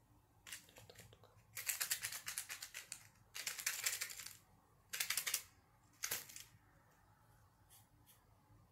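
Fingernails rapidly tapping and scratching on a small box, in about five short bursts of fast ticking, the two longest lasting about a second each.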